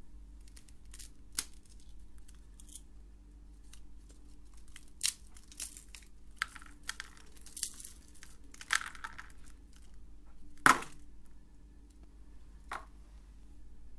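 A crisp Nutella-filled biscuit being broken apart by hand: scattered crackles and snaps of the brittle shell and crumbs. One sharp crack about three-quarters of the way through is the loudest, over a faint steady hum.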